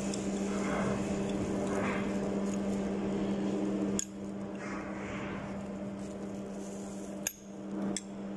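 A steel rod scraping and clicking against a steam globe valve's cast disc and flange, with a few sharp metallic clicks near the end, over a steady background hum.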